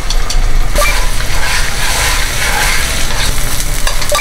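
Beaten egg sizzling in an oiled frying pan, with chopsticks clicking and scraping against the pan as the thin omelette is folded.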